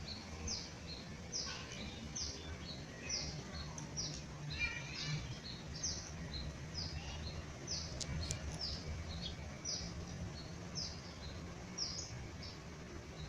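Small songbirds calling: one repeats a short, high, falling note about once or twice a second, and another chirps briefly about four seconds in, over a low steady hum.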